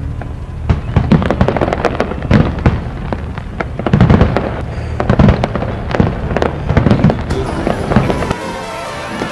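Fireworks display: many aerial shells bursting in quick succession, a dense run of loud bangs and crackling. The bangs stop shortly before the end.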